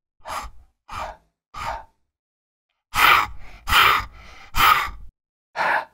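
The English /h/ sound said on its own as breathy huffs of breath: three soft ones, then three loud, hard ones about a second apart, and one more near the end.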